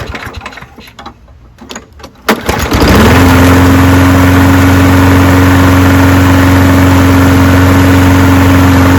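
Briggs & Stratton engine of a Toro Recycler push mower being started: some clattering and a sharp knock, then it catches about three seconds in and runs loud at a steady, even speed. The surging and rough running it had are gone now that its clogged air filter has been replaced.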